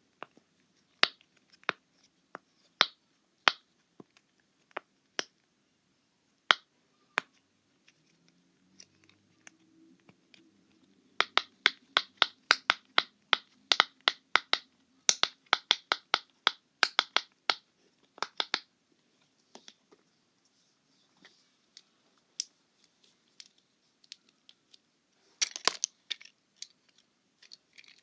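Bubbles of a round silicone pop-it fidget being pressed one at a time, each giving a sharp pop. A few spaced pops come first, then a quick run of about three or four pops a second in the middle, then scattered pops and a louder cluster of handling clicks near the end.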